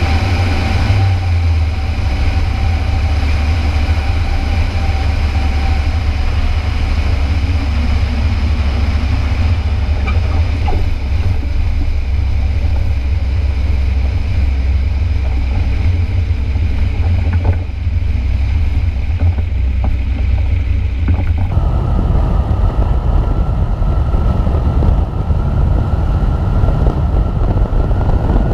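Revo light-sport trike's engine and propeller running steadily under a heavy low rumble. About three-quarters of the way through the sound changes abruptly and a steady higher whine comes in.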